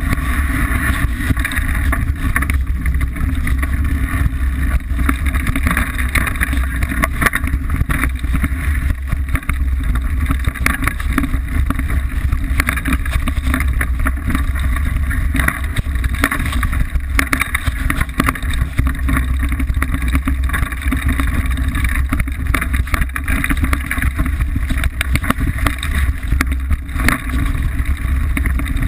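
Liteville 301 full-suspension mountain bike descending a rough, rocky singletrack at speed: dense irregular rattling and clattering of the bike over the ground, over a constant heavy rumble of wind buffeting the frame-mounted microphone.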